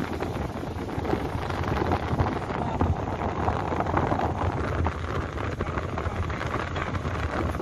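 Wind rushing over the microphone with the low rumble of a moving vehicle, a steady noise.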